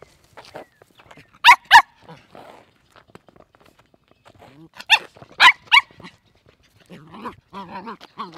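Puppy barking in sharp, high-pitched yips: two in quick succession about a second and a half in, then three more around five seconds in.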